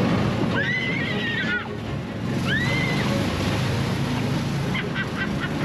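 Amphibious off-road vehicle driving through shallow water, its engine running steadily under the slosh and splash of water. Two high, drawn-out tones rise, hold and fall, about a second in and again near the middle.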